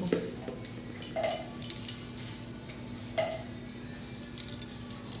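Scattered light clinks and taps of small objects being handled, over a faint steady hum.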